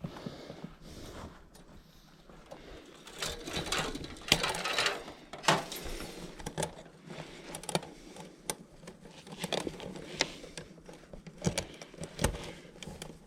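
Irregular clicks, rattles and short scraping rustles of hands handling tools and parts, with several sharper knocks scattered through.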